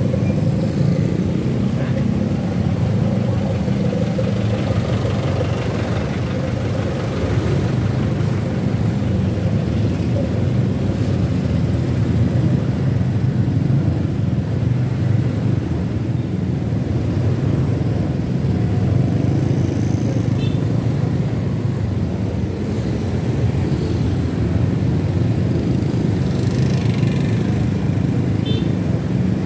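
Motor scooter and car engines in slow, stop-and-go street traffic: a steady low rumble of engines idling and creeping along.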